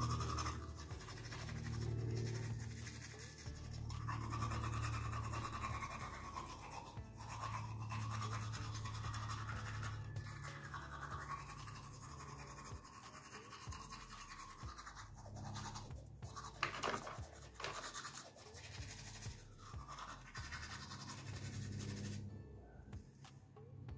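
Toothbrush scrubbing teeth with steady, repeated back-and-forth strokes, with soft background music under it.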